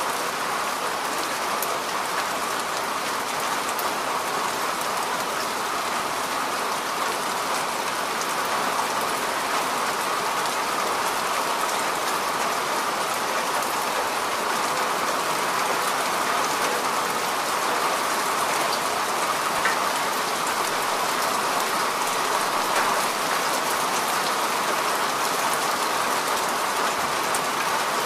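Steady rain falling, an even hiss of dense drops with a few sharper drop ticks here and there.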